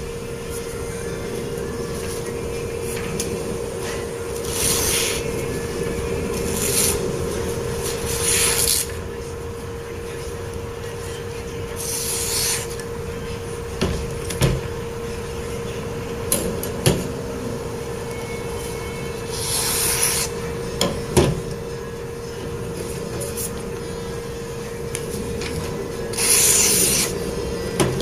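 Powered belt sander running with a steady hum while a serrated knife blade is sharpened on it, the steel drawn across the belt in about six short hissing passes, with a few light clicks in between.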